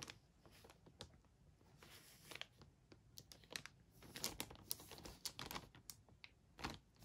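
Clear plastic bags around model-kit sprues crinkling faintly as hands handle them and lift one out, a scatter of short rustles.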